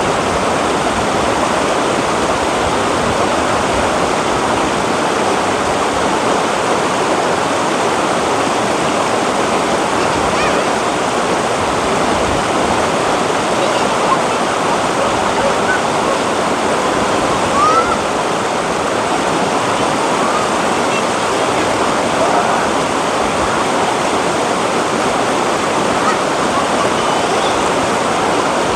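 Shallow rocky river rushing through rapids and over boulders: a loud, steady rush of water.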